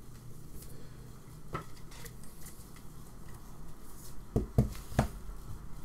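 Hands handling trading cards on a tabletop: a faint click about one and a half seconds in, then three knocks close together near the end.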